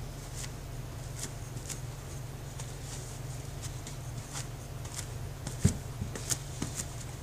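A sponge dabbing wet lightweight setting-type joint compound onto a drywall ceiling to raise a knockdown texture: irregular soft wet taps and clicks over a steady low hum, with a louder knock about three-quarters of the way in.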